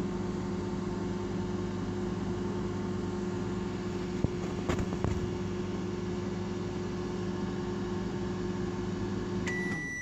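Microwave oven running with a steady hum. Near the end the hum cuts off and a high beep sounds as the one-minute cooking cycle finishes.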